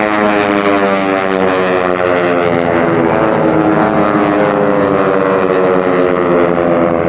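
AT-6 Texan race planes' Pratt & Whitney R-1340 nine-cylinder radial engines and propellers droning loudly at full race power, the pitch sliding slowly downward as they fly past.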